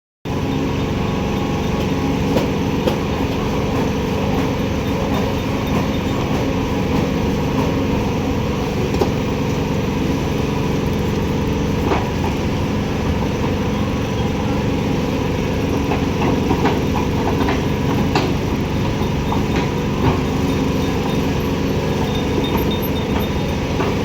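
Heavy construction machinery's diesel engine running steadily, with a few short knocks here and there.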